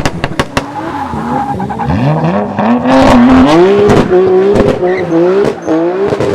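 Modified Toyota GR Supra Mk5's turbocharged B58 straight-six revving, its pitch climbing about two seconds in and then rising and falling repeatedly, with sharp exhaust pops and crackles throughout.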